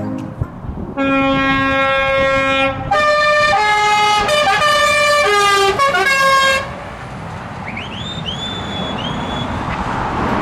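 Truck air horn: one steady blast about a second in, then a longer, louder blast whose notes change several times. It is followed by truck engine and road noise, with a few short rising squeaks.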